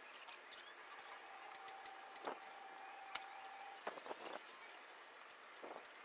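Faint clicks and knocks of hands working at a milling machine's drill chuck and vise, with a faint steady high tone for about three seconds in the middle.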